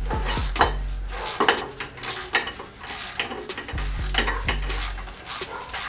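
Socket ratchet clicking and metal tools clinking in short, irregular strokes while undoing the turbocharger mounting bolts on a Nissan RB20DET engine.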